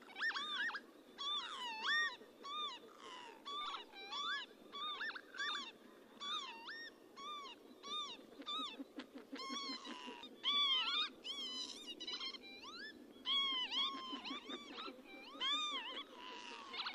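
Northern lapwings calling: repeated slurred, arching 'pee-wit' calls from several birds overlapping, about two calls a second, over a steady low background noise.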